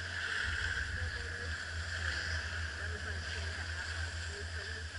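Riding a chairlift: a steady rush of wind and lift noise over a low rumble, as the chair passes a lift tower. The rumble turns uneven about half a second in.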